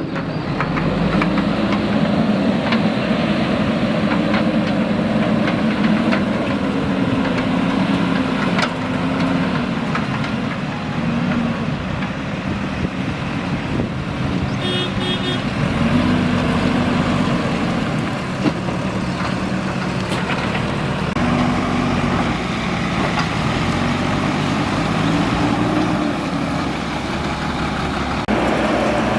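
JCB 3DX backhoe loader's diesel engine working, its revs rising and falling over and over as it digs and lifts under hydraulic load. A brief high beeping sounds about halfway through.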